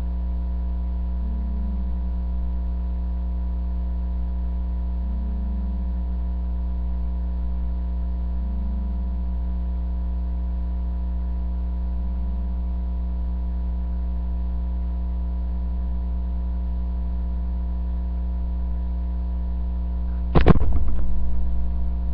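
A sleeping person snoring faintly about every four seconds under a steady low hum. Near the end comes a sudden loud clatter.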